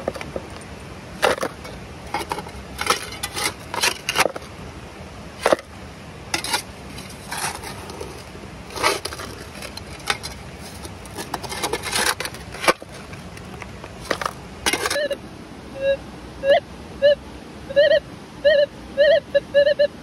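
Small steel shovel scraping and digging into gravel and soil against bedrock, with dirt tipped into a plastic gold pan. About three quarters of the way through, a metal detector starts giving short repeated beeps, about two a second, as its coil is passed over a buried target.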